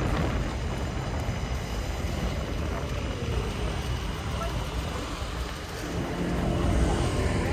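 City street noise: a steady low traffic rumble with faint voices of passers-by, growing louder about six seconds in.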